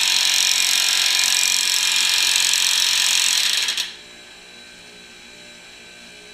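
Electric impact wrench running, twisting a forge-hot Damascus bar held in a hydraulic press. It stops abruptly about four seconds in, leaving a quieter steady hum.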